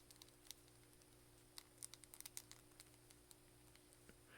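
Near silence broken by faint clicks and ticks of a plastic wrestling action figure being handled and turned over, a cluster of them about two seconds in, over a faint steady hum.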